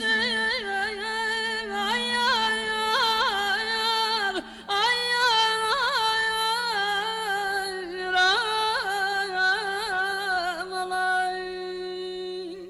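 A woman sings a Segah mugham in long melismatic runs with rapid trilling ornaments, over a steady low drone from the accompanying instruments. The voice breaks off briefly about four and a half seconds in, and near the end it settles on a long held note.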